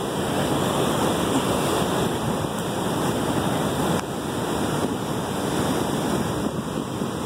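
Ocean surf breaking and churning against the rocks of a jetty: a steady, loud rush of water.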